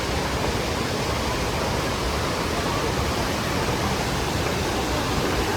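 Steady rushing of the Kaveri river's waterfalls and rapids, an even, unbroken hiss of falling water.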